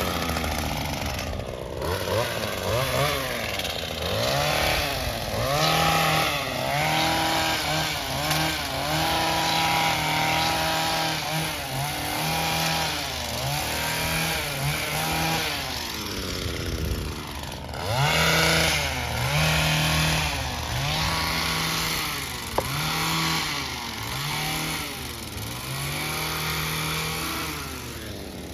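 Small handheld gas power-tool engine throttled up and down over and over, its pitch rising and falling about every second and a half, as in trimming work. It eases off briefly past the middle, then picks up again, with a single sharp click near the end.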